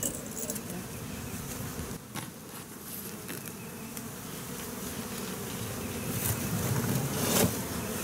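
Honeybees buzzing steadily around an opened hive, with a couple of knocks from the wooden hive boxes being lifted and set down, one about 2 seconds in and one near the end.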